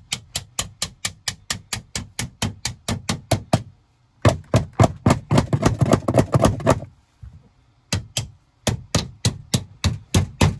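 Rapid hammer taps on sheet metal, about six a second, driving a drive cleat onto the seam of a galvanized duct joint. They come in three runs with short pauses between.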